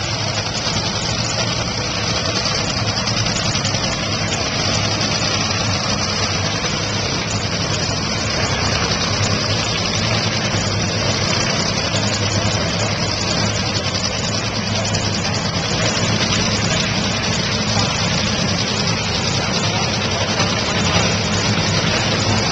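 Top Fuel dragsters' supercharged, nitromethane-fuelled Hemi V8 engines idling loudly and steadily at the starting line, with no launch or revving.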